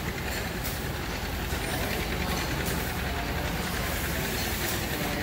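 Stationary steam engines running in a steam shed: a steady mechanical din with faint regular ticks about once a second.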